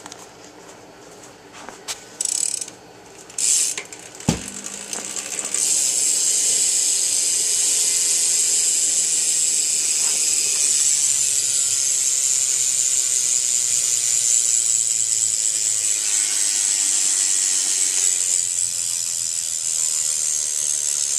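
BMX rear cassette hub freewheeling, its pawls clicking in a rapid buzz: two short spins and a knock, then from about five seconds in one long continuous spin that slowly winds down. It is a loud hub.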